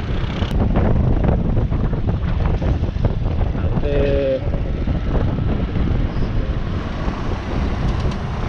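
Wind buffeting the microphone of a rider on a moving Suzuki scooter, over the scooter's engine and tyre noise. A short steady tone sounds once, about four seconds in.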